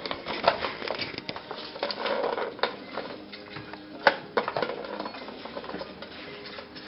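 Irregular light knocks and clatters of hard plastic as a kitten paws and climbs on a plastic ball-track cat toy, with a sharper knock about four seconds in. Soft music plays underneath.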